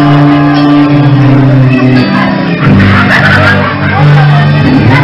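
Live rock band playing loud: drums with electric guitar and bass holding long low chords that change about halfway through, and a singer's voice coming in near the end.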